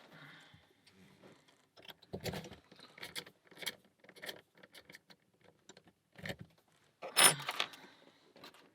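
Small metal clicks and rattles of a lock and lock-picking tools being handled and set up in a vise, with a louder metallic clatter about seven seconds in.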